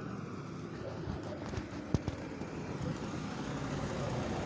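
Steady low street noise with short knocks from a phone handled while walking; one sharp knock about two seconds in is the loudest.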